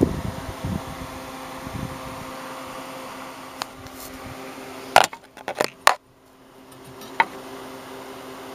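A few sharp metallic clicks and clinks of tools and refrigerant fittings being handled, with a quick cluster of them about five seconds in and a single click a couple of seconds later, over a steady low hum.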